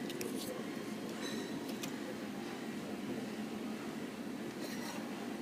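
Large espresso machine running with a steady mechanical hum, with a few light clicks and clinks over it.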